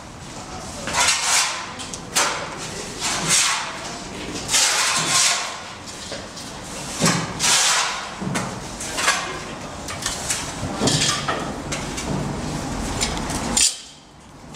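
Building work with hand tools: irregular scraping and knocking strokes, a second or two apart, of shovels and tools working sand and rubble. The strokes stop shortly before the end.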